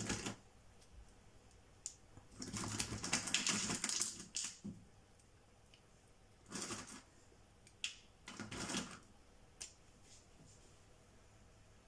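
Caramel-coated cashews clicking and rattling against each other and the bowl as a hand scoops them out, in three short bursts, the first the longest.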